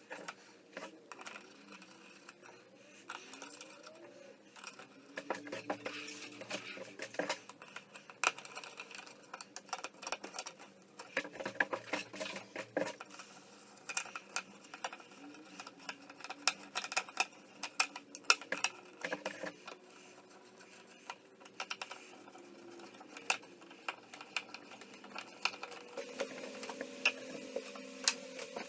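Irregular light clicks and knocks of hand work on an old, dry wooden crate, with a steady low hum coming in near the end.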